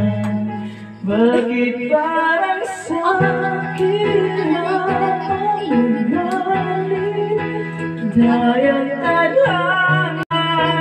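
A man singing into a microphone over instrumental backing music with steady, sustained low notes; the sound drops out for a split second near the end.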